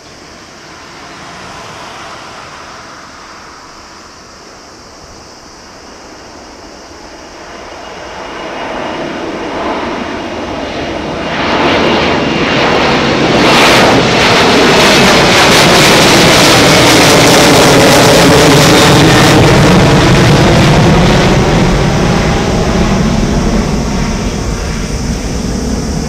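Iberia Airbus A330-200's twin jet engines at takeoff thrust during a climb-out. The roar builds over the first half, is loudest and sweeps in pitch as the airliner passes overhead about halfway through, then eases a little as it flies away.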